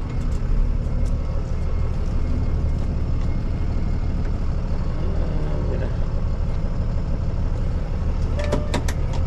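Tow truck's engine running steadily with a low rumble, with a few sharp clicks near the end.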